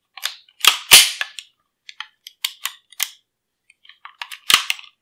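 Walther P38 pistol being worked by hand as it is taken down: a series of sharp metal clicks and clacks from its slide and parts, loudest about a second in and again near the end.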